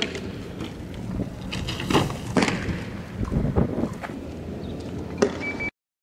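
Rough outdoor street noise with a low rumble, broken by four sharp knocks or bangs; the sound cuts off suddenly near the end.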